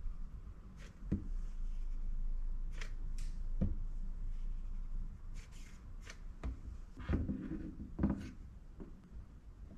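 Hand work on a battery pack: a cordless hot glue gun being used on cylindrical lithium-ion cells, then set down and the cells handled and pressed together on a wooden desk. Scattered light clicks and knocks, with a quick cluster of knocks about seven to eight seconds in.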